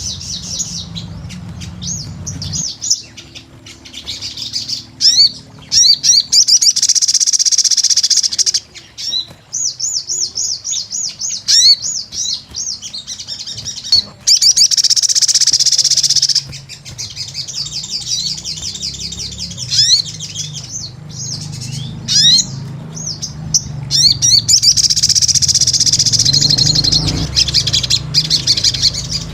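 A sogon, a sunbird, singing vigorously: bouts of rapid, high-pitched chirps and quick trills several seconds long, broken by short pauses, over a faint low hum.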